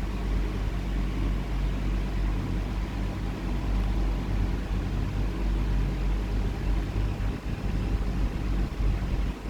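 A running motor humming steadily and low.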